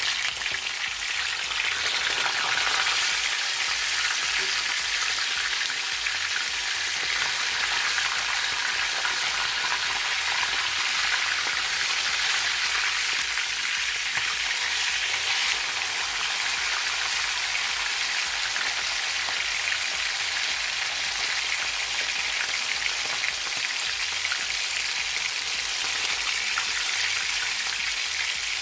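Whole fish frying in hot vegetable oil in a skillet: a steady sizzle and crackle of the oil while the fish are turned over with a spatula and fork.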